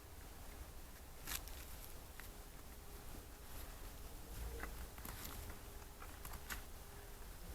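Faint forest ambience: scattered soft clicks and pattering ticks over a low rumble, the sharpest tick about a second in.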